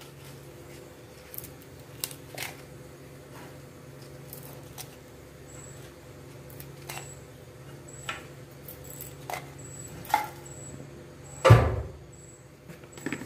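Light handling ticks as dried red chillies are dropped one at a time into a steel mixer-grinder jar, over a steady low hum. One much louder thump comes about eleven and a half seconds in.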